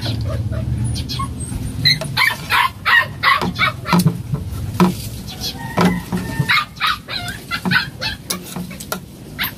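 Spoon and fork clinking and scraping on a plate during a meal, with repeated short animal calls from domestic animals around the hut.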